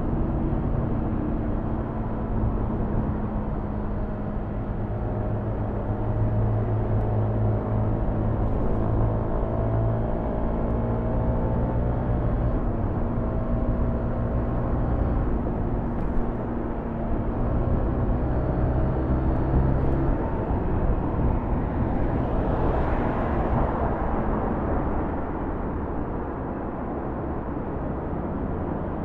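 Motorcycle engine running as the bike rides through city traffic, its pitch shifting as it slows and speeds up, with a brief rush of noise about three quarters of the way through.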